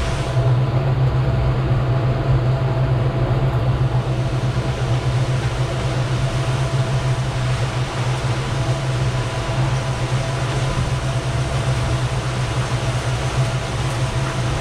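Twin outboard motors running steadily under way, a constant low drone with a faint steady whine, mixed with rushing wind and water.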